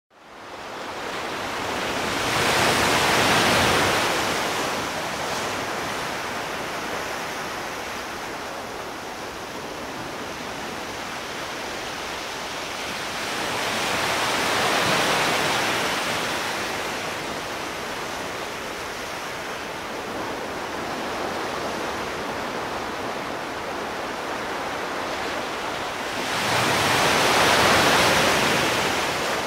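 Sea surf: a steady wash of waves, swelling louder three times, about twelve seconds apart, as waves break.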